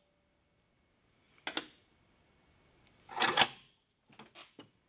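After about a second of silence, sharp metallic clicks, then a short clatter about three seconds in and a few lighter clicks near the end: hand tools and small brass hinge pieces being handled against a steel vise.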